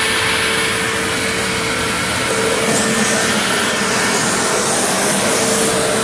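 Early-2000s Hoover Self Propelled WindTunnel Ultra upright vacuum running steadily: a constant motor whine over the rush of airflow.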